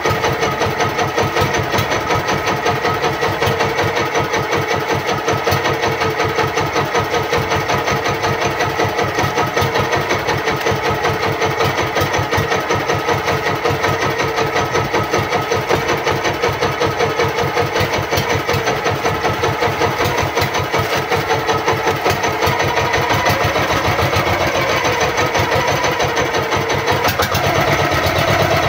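Outrigger fishing boat's engine running steadily with a fast, even chugging, picking up slightly near the end.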